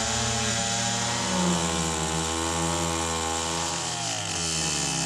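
Chainsaw running at high revs, cutting through a large elm trunk; its pitch sags under load about four seconds in, then picks back up.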